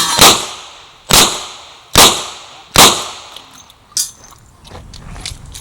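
Revolver shots fired in quick succession: four loud cracks, each with a short echo tail, under a second apart, then a fainter fifth shot about four seconds in. Low rustling handling noise follows near the end.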